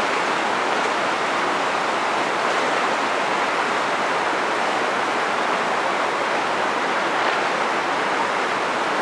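Steady rushing of floodwater running below the dam's spillway, an even unbroken roar of water.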